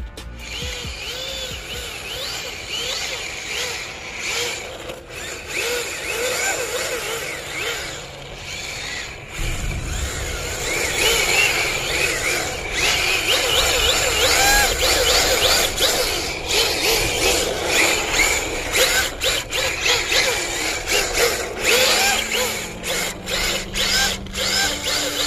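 Electric motor of a 1/10 scale RC drift car whining up and down in pitch with repeated throttle blips as the car drifts, along with the hiss of its tyres sliding on asphalt. It gets louder about ten seconds in as the car comes close.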